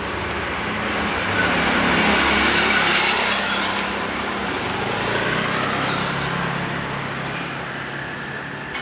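Road traffic: a motor vehicle's engine swells as it passes about two to three seconds in, then fades into steady traffic noise.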